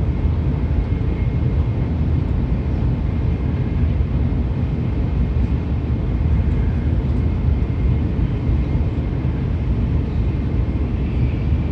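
Steady low rumble and rush of a Shinkansen high-speed train running at about 265 km/h, heard from inside the carriage.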